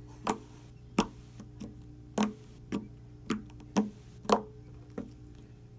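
Orange slime being squeezed and kneaded by hand, giving a string of sharp wet clicks and pops, about eight in five seconds, over a low steady hum.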